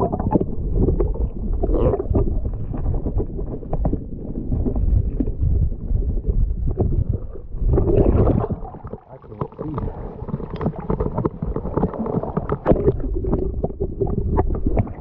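Muffled rumbling and gurgling of river water heard through a submerged action camera's housing, with scattered small clicks and knocks.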